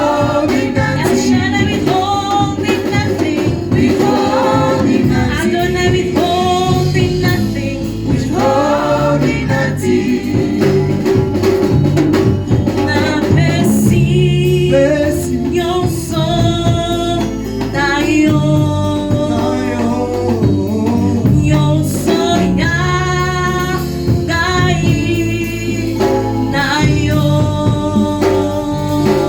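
Gospel song: singing voices with wavering held notes over a steady instrumental backing.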